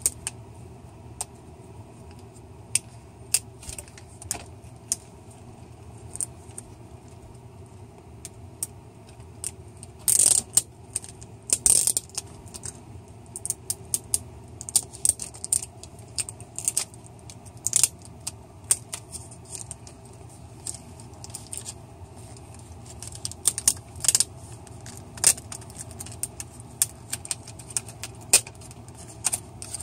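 Irregular small clicks, crinkles and rattles of fingers working at the taped display-cable connector on the back of a laptop LCD panel, coming in scattered clusters.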